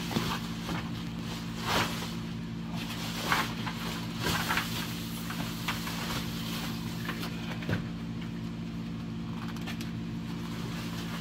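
Bubble-wrap and cardboard packaging rustling and scraping in a handful of brief bursts as a grille is slid out of its box, over a steady low hum.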